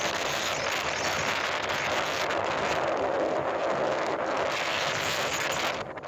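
Strong wind rushing steadily over the microphone, easing briefly near the end.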